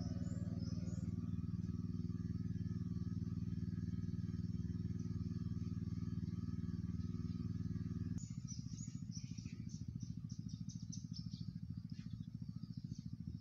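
A steady low mechanical hum, like an engine running, changes abruptly about eight seconds in to a rapid pulsing drone. Short high chirps sound over it for a few seconds after the change.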